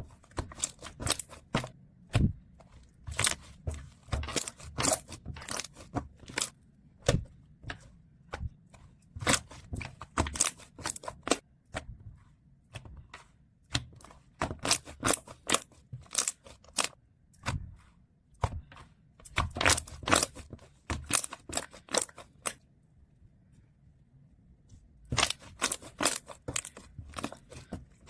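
Slime being squeezed, poked and stretched by hand, giving runs of sharp crackling, popping clicks. There are short pauses about halfway through and again near the end.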